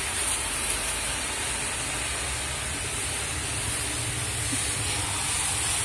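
Moderate rain shower falling steadily.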